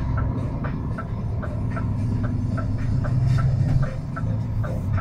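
Truck's diesel engine running under load, heard from inside the cab, with the turn indicator ticking steadily about two and a half times a second as the truck turns.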